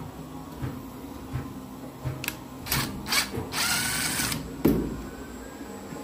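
Handling noise of tools at the metal front panel of an industrial tumble dryer: a few sharp metallic clicks, a rattling scrape lasting under a second, then a single thump, as the front top cover is being opened.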